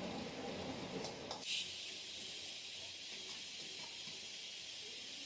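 Hot oil sizzling steadily in a kadai as battered, marinated chicken strips deep-fry, with a brief louder burst about a second and a half in.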